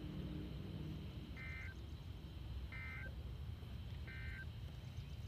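Three short electronic alert beeps, evenly spaced about 1.4 seconds apart, from a radio scanner as a dispatch broadcast begins, over a low background rumble.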